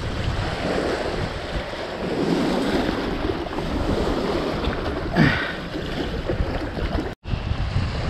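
Strong gusting wind buffeting the microphone, with choppy water washing against the shore. The sound cuts out for an instant near the end.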